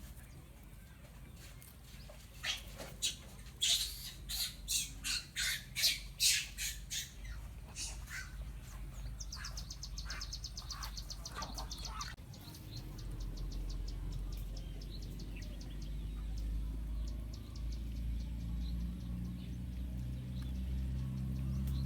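A run of about a dozen short, sharp animal calls, roughly two a second, then a fast high ticking trill for a few seconds. A low steady rumble builds through the second half.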